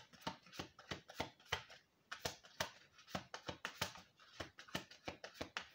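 Oracle cards being shuffled by hand: an irregular run of soft card snaps and flicks, several a second.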